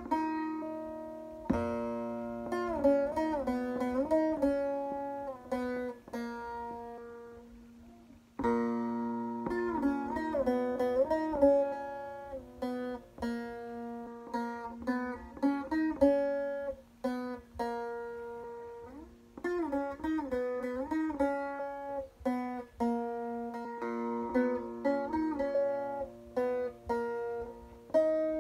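Bağlama (Turkish long-necked saz) played solo: a plucked melody with slides and ornaments over ringing open-string drone notes, in phrases that pause briefly about eight and nineteen seconds in.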